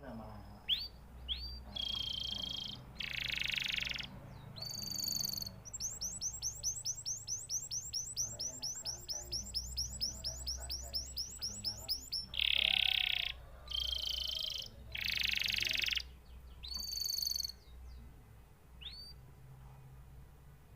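Domestic canary singing: quick rising whistles and buzzy notes, then a long rapid trill of repeated notes about midway. The song thins to a few notes near the end, over a low steady hum.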